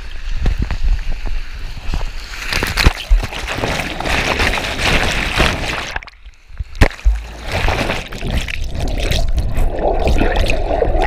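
Water rushing and sloshing through an enclosed plastic water slide as a rider slides down it, with a few knocks. Near the end the rider plunges into the pool and the sound turns to muffled, bubbly underwater noise.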